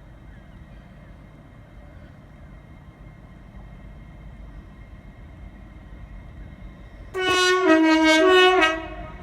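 Train horn sounding about seven seconds in, switching back and forth between a higher and a lower note for nearly two seconds, over a steady low rumble.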